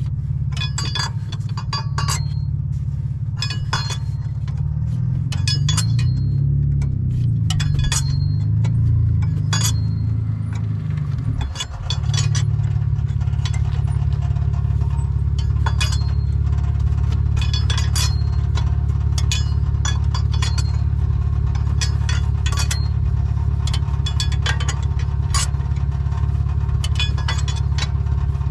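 Light metallic clinks of hand tools at irregular intervals, over a steady low mechanical hum that wavers and dips briefly about twelve seconds in.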